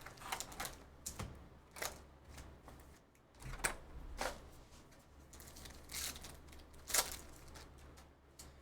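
Hands opening a trading-card hobby box and its packs: scattered crinkles, rustles and sharp clicks of wrapping and cards being handled.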